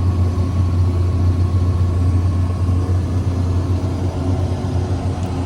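Combine harvester engine running steadily under way: a constant low drone.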